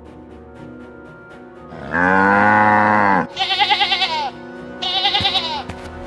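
Background music, with a cow mooing once for about a second and a half about two seconds in. Then a sheep bleats twice, each call wavering in pitch.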